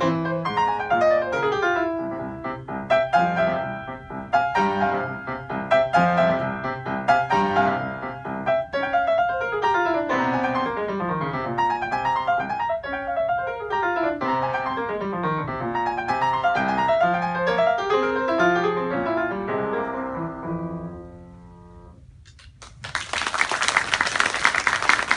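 Solo piano playing a classical exam piece with fast descending runs; the final notes die away about three-quarters of the way through. Audience applause starts near the end.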